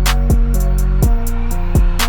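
Electronic background music with a steady programmed beat, deep bass notes and ticking hi-hats.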